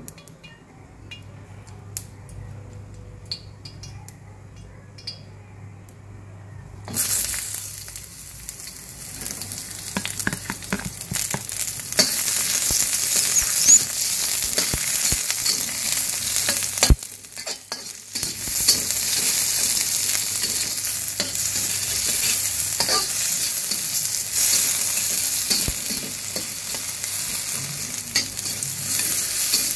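Sliced shallots, garlic, onion, chillies, tomato and bay leaves sizzling in hot oil in a stainless steel wok, with the metal spatula scraping and clinking against the pan as they are stir-fried. The pan is nearly quiet with a few light clicks at first; the sizzle starts suddenly about seven seconds in, breaks off for a moment a little past halfway, then carries on steadily.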